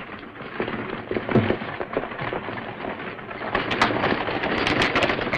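Horses' hoofbeats: a rapid, uneven clatter over a steady hiss, growing louder and denser about three and a half seconds in.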